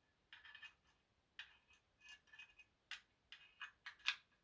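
Faint metallic clicks and scrapes, about eight at irregular spacing, from a large brass padlock being handled and turned over.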